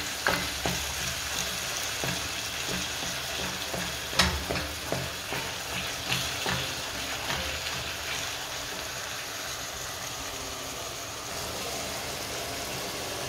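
Minced meat and onions sizzling in an enamel pot. For about the first seven seconds a wooden spoon scrapes and knocks against the pot as it stirs, then the frying sizzles on steadily.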